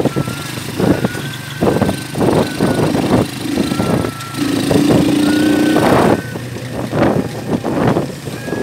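Vehicle travelling over a rough, muddy dirt road, with repeated jolts and knocks from the bumps and a thin squeal that comes and goes. A steady engine note holds for about a second and a half near the middle.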